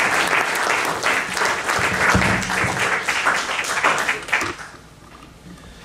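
Audience applauding a speaker's welcome, many hands clapping together, dying away about four and a half seconds in.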